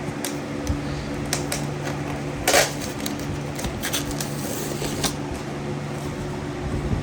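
Packaging being handled by hand: scattered clicks and crinkles, with one louder crinkle about two and a half seconds in, over a steady low hum.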